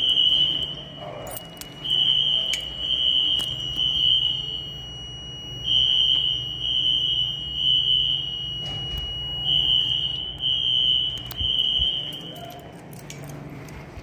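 Siemens ZH-MC-R fire alarm horn strobes sounding a loud, high-pitched horn in repeating groups of pulses with short pauses between, a fainter steady tone carrying on through the pauses. The horns cut off about thirteen seconds in as the alarm is silenced at the panel.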